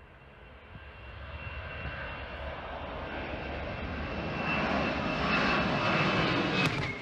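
Twin-engine jetliner climbing out after takeoff, its turbofan engines running at high power and growing steadily louder as it comes overhead, with a steady high whine over the rumble. A single sharp crack comes near the end.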